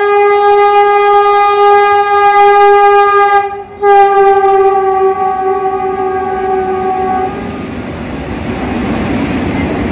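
Vande Bharat Express electric trainset sounding its horn in two long blasts as it runs through the station at speed without stopping, the second blast sagging slightly in pitch near its end. After the horn stops, the coaches rush past with a steady rumble and clatter of wheels on rail.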